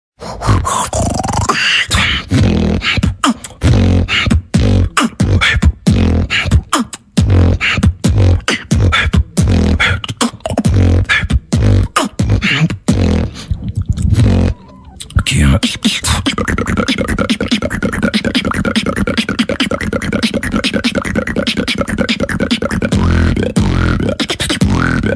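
A solo beatboxer performs a beat of deep kicks and sharp snares into a studio microphone. About fifteen seconds in, after a short break, it turns into a steady, fast-pulsing buzz: a lip roll bass drop.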